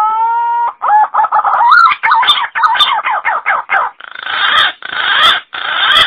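Green pigeon (punai) calling: a long rising whistle, then a quick run of warbling whistled notes that glide up and down, ending in three harsher, raspy notes.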